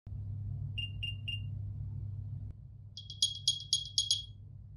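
AirPods Pro 2 charging case's built-in speaker playing its Find My alert: three short high beeps, then a fast run of sharp high chirps. A low hum sits under the first half and stops about halfway.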